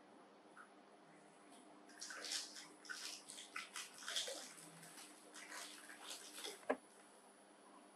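Crinkling and crackling of a plastic snack packet and dry instant noodles being handled and broken, for about five seconds, ending in one sharp snap.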